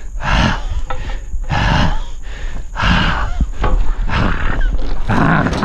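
A man grunting and roaring with strain in repeated loud bursts, a little over one a second: the effort of dragging a 500 to 1000 lb log by hand.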